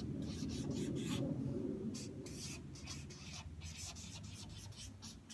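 Marker pen writing on a large paper pad on an easel: a quick, uneven run of short strokes as letters are drawn.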